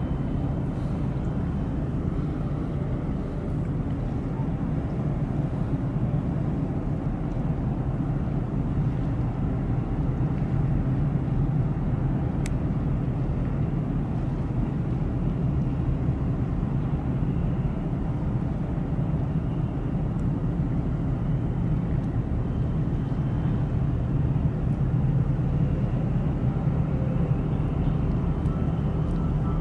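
Steady low engine rumble from ships under way in the harbour, with faint steady tones running through it.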